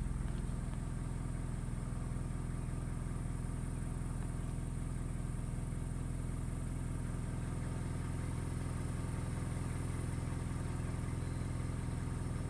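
Car engine idling steadily, heard from inside the car.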